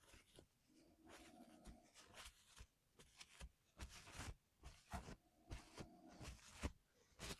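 Faint clicks, taps and two short scrapes of plastic and metal parts being handled while a 60% mechanical keyboard is taken apart and reworked.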